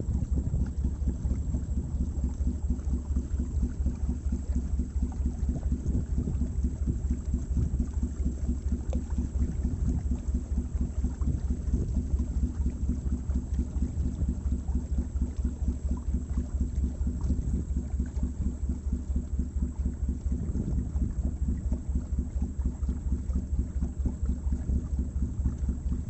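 Motorboat engine running steadily under way, a low, fast, even throb.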